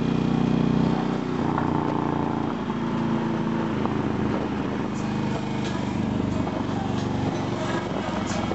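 Motorcycle engine running steadily while riding, heard from on the moving bike, a little louder in the first second.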